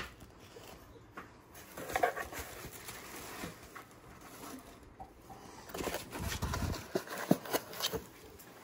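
Cat moving about in a cardboard box, rustling and scratching against the cardboard and a plush toy, with scattered light taps. The taps and rustles get busier in the last few seconds, with a brief low bump.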